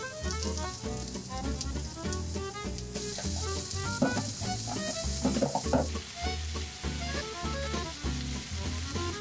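Food sizzling as it fries in a pan, with louder stirring clatter about four to six seconds in, under background music with a steady bass beat.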